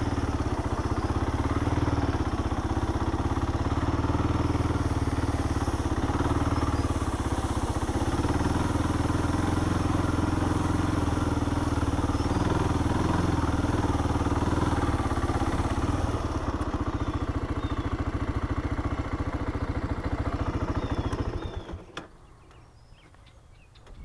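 Honda four-wheeler (ATV) engine running steadily while riding, then cutting off near the end as it shuts down.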